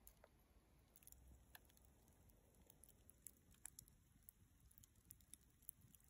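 Faint, sparse crackling of a small wood fire burning low on embers: irregular soft ticks and snaps, several a second, growing busier about a second in.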